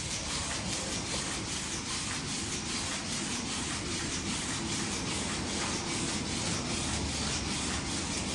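Small electric motors and gears of a walking model helicopter whirring steadily as it steps along on its mechanical legs.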